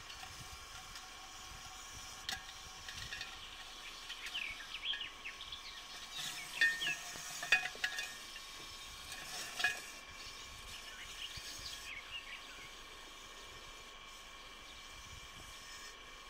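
Rustling, scraping and light clinks inside a glass jar as a common adder and a mouse move against the glass and a sheet of newspaper. There are a few sharp knocks and short high chirps through the middle, over a steady hiss.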